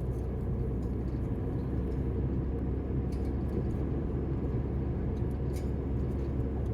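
Steady low rumble of engine and road noise heard inside a moving car's cabin, with a couple of faint ticks.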